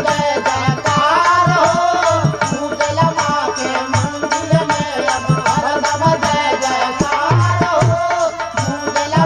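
Instrumental passage of a Bhojpuri devotional song: a hand drum plays a steady rhythm of deep strokes and lighter slaps, under a wavering melody line.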